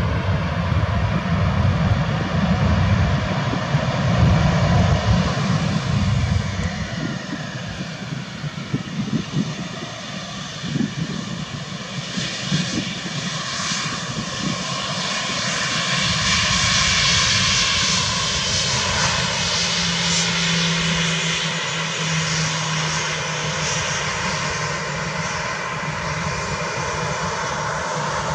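Jet airliner's twin turbofan engines (Airbus A320 family) running with a steady whine over a broad roar, and a deep rumble in the first few seconds. The roar grows louder and hissier about halfway through as the aircraft gets under way for takeoff.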